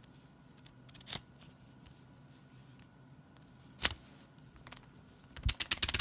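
A folded paper warranty leaflet handled and crinkled: a short rustle about a second in, a sharper crackle just before four seconds, then a quick run of crackles near the end as the paper is moved.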